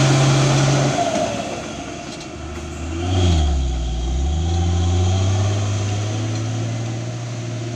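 Dump truck's diesel engine pulling away: about three seconds in, the engine note dips in pitch and climbs back, then holds steady.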